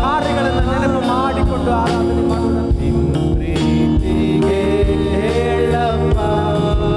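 Christian worship song sung in Kannada: a voice singing over sustained instrumental chords and a percussion beat.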